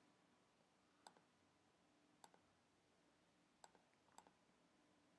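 Near silence broken by four faint, sharp computer mouse clicks, spaced a second or so apart, as the count on a software field is stepped up.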